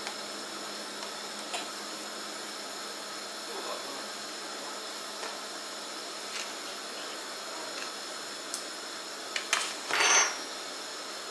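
A soft plastic mayonnaise pouch crinkles briefly as it is handled and put down on a wooden table, about nine and a half seconds in. This is the loudest sound. Before it there is only a faint steady hiss with a few small clicks.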